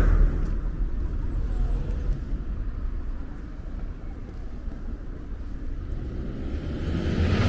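Road traffic: a passing car fades away in the first second, a low rumble of traffic goes on, and another vehicle's tyre and engine noise swells near the end.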